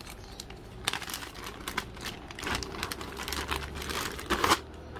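Clear plastic bag crinkling as hands handle it, in irregular rustles from about a second in, loudest shortly before the end.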